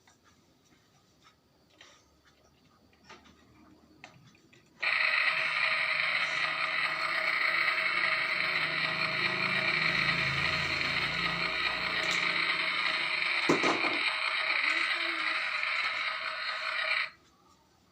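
Battery-powered toy cooking set running a steady mechanical buzz for about twelve seconds. It switches on suddenly about five seconds in and cuts off suddenly near the end, after a few light plastic clicks.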